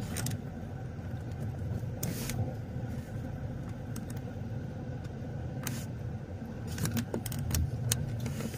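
Car driving: a steady low engine and road rumble, with scattered short clicks and rattles, several of them close together near the end.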